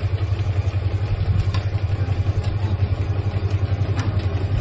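A Pro Sportdog Gym curved dog treadmill rumbling as a dog runs on it: a loud, steady low rumble with a quick flutter, and a few faint clicks.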